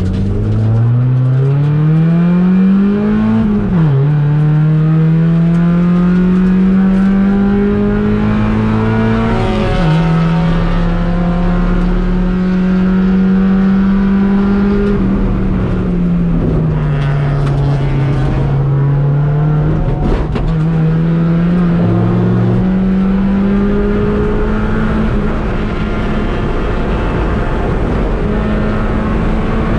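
Race car engine under hard acceleration, its revs climbing and dropping sharply at two quick upshifts, then falling off for a corner about halfway through before building again through the gears.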